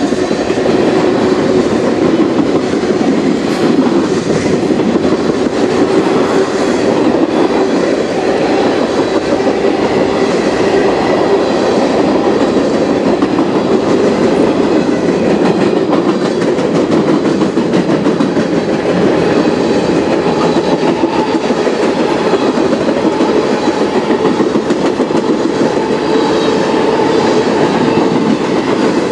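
A CN manifest freight train's cars, tank cars, covered hoppers and gondolas, rolling past steadily, their steel wheels clattering over the rails.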